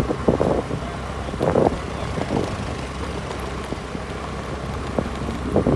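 Moving road vehicle on a town street: a steady low rumble with uneven surges of wind noise on the microphone.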